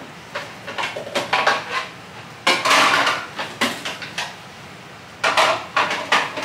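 Dishes clattering and clinking as plates are gathered on a kitchen counter: a run of short knocks, loudest about two and a half seconds in and again near the end.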